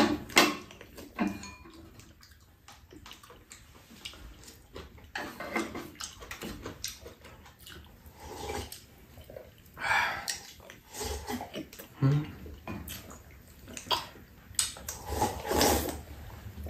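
Soup being eaten: slurping broth from a bowl and from spoons, with repeated light clicks of spoons and chopsticks against ceramic bowls. The longest slurps come about ten seconds in and again near the end.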